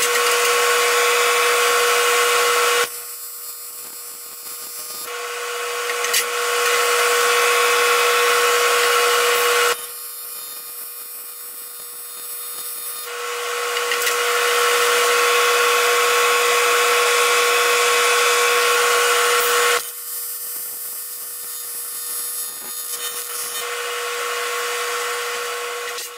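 AC TIG welding arc on aluminum: a steady, even-pitched buzz with a hiss over it. It gets louder and quieter in long stretches, three times dropping off abruptly and building back up gradually.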